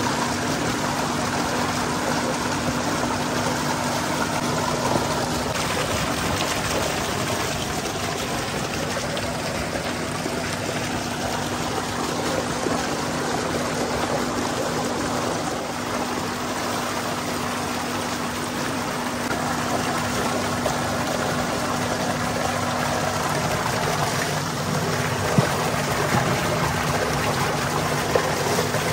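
Heavy stream of water gushing from a pipe into a concrete tank: a steady, continuous rush with a steady hum underneath. Two short sharp knocks near the end.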